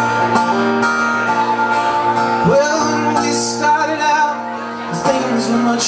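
Live band music: acoustic guitar, electric guitar and drums playing together, with a few bending, gliding notes partway through.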